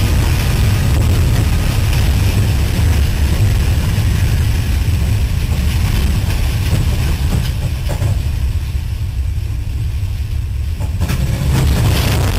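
Heavy, steady low rumble of a train at a derailment, heard from the locomotive, with a hiss higher up that fades in the second half and returns near the end.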